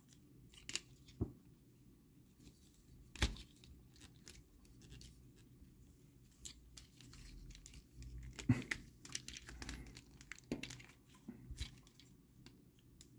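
Scattered faint clicks and knocks of hard plastic as a Transformers figure's chest halves are handled and worked apart after unscrewing, the sharpest knock about three seconds in.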